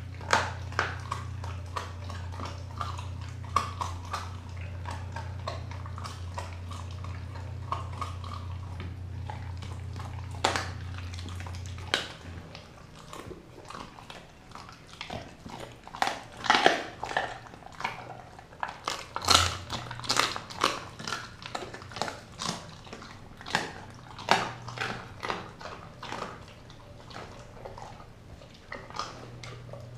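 A Doberman chewing and biting on raw turkey meat: irregular crunching bites and chews, getting louder and quicker about halfway through. A low steady hum runs underneath and stops about twelve seconds in.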